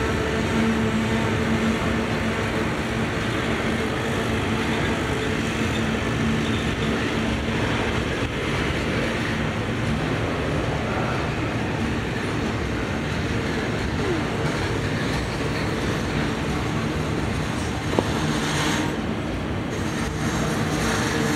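Double-stack intermodal container train rolling past: steady rumble and rail noise of the loaded well cars' wheels on the track, with a single sharp click near the end.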